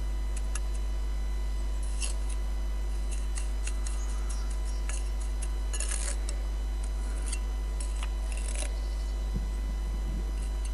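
Steel mason's trowel scraping and clicking against brick and quick-setting mortar, with short scrapes about two, six and eight and a half seconds in and scattered light clicks between them. A steady low hum runs underneath.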